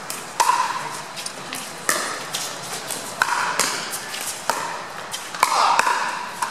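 Pickleball paddles hitting a hard plastic ball in a rally: a string of sharp, short pops at irregular spacing, each with a brief ringing tail.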